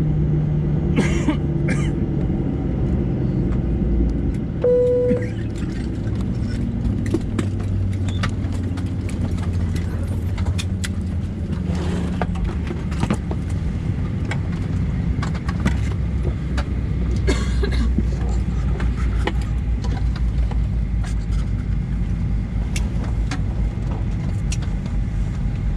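Parked airliner cabin noise: a steady low hum of the cabin air supply, with scattered clicks and rattles from the cabin. A brief single chime tone sounds about five seconds in.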